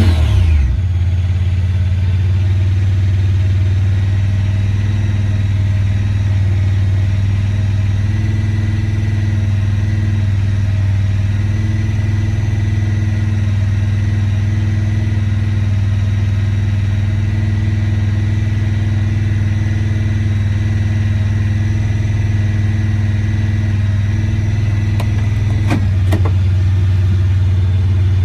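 Honda Pioneer 1000 side-by-side's parallel-twin engine coming down off a rev in the first half second, then idling steadily. A couple of faint clicks come near the end.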